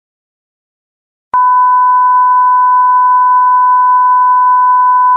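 Steady test tone that goes with colour bars, a single high beep held at an even level. It starts abruptly with a click about a second in, after silence.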